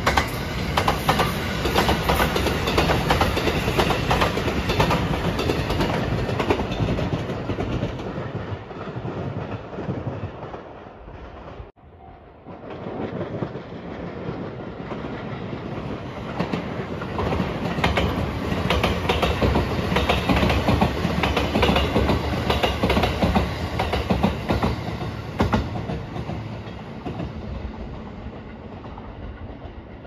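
JR Marine Liner electric rapid trains running past on the rails. The sound of the first train cuts off abruptly just before halfway, then a second train comes up loud and fades away near the end.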